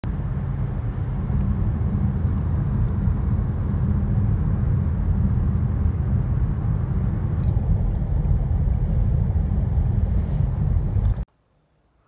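Steady road and tyre rumble with engine noise inside the cabin of a moving car, cutting off suddenly about eleven seconds in.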